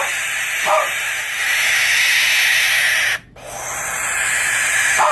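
Barn owl screeching: a long, harsh, rasping scream that breaks off about three seconds in, followed almost at once by a second screech.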